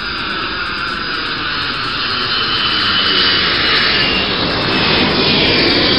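Twin-engine jet airliner passing low overhead on landing approach, gear down. The engine noise grows louder, with a whine that slowly falls in pitch as it goes over.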